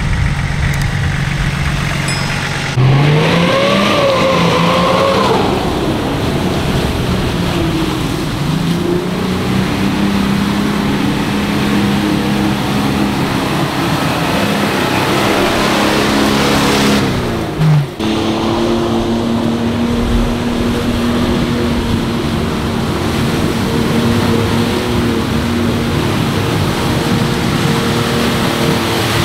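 Off-road 4x4 engine revving up sharply about three seconds in, then pulling steadily under load. Its pitch drops and cuts off abruptly a little past halfway, then a steady engine note runs on.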